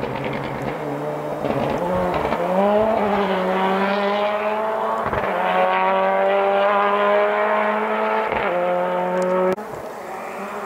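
Rally car engine at high revs, accelerating hard, its pitch climbing between short breaks at gear changes about two, five and eight seconds in. The sound cuts off abruptly near the end.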